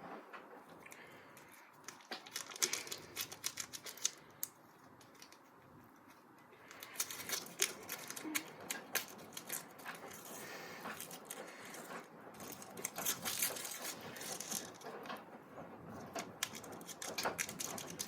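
Rapid, irregular light clicking and rattling of small hard objects, in a burst early on and again more densely from about the middle onward.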